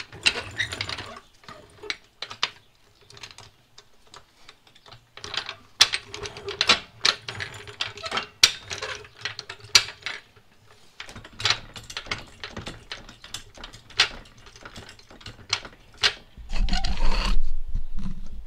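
Steel hydraulic floor jack being rolled and worked under a car: irregular metallic clicks and clanks from the jack and its handle. A low rumble comes in near the end.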